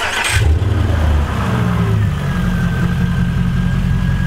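Straight-piped 2007 Volvo S80's 4.4-litre V8 catching on start-up, its revs flaring for a second or so and then settling into a steady idle by about two seconds in, with a thin steady whine over the rumble. This is the first start after a fresh oil and filter change, run so the new filter fills.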